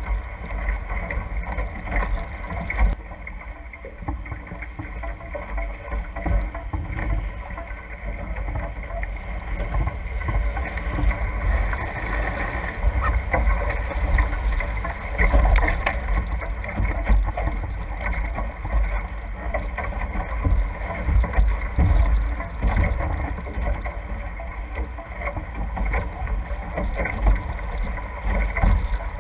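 Wind buffeting the microphone and water rushing and splashing off the hulls of a NACRA F18 catamaran sailing fast. It is a loud, gusty rumble that surges unevenly.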